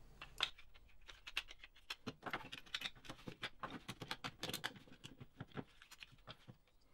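Plastic parts of a car accelerator pedal being handled and fitted back together by hand: a scatter of small, irregular clicks and taps of plastic on plastic.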